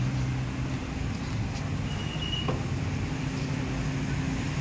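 Street traffic: a vehicle engine running steadily nearby, with a short high tone about two seconds in.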